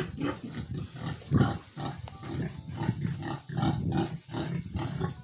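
Large White × Duroc crossbreed pigs grunting in their pen: a run of short, low grunts, about two a second, with one louder grunt about a second and a half in.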